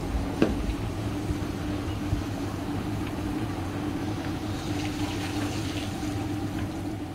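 Twin outboard motors on a center-console boat running at idle, a steady low hum, with water noise around the hull and a single sharp knock about half a second in.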